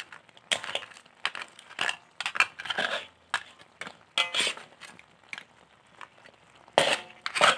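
A metal fork scraping and knocking against the cooking pot and the shells of cooked crabs as they are turned in thick coconut gravy: irregular clinks, scrapes and crunches, loudest near the end.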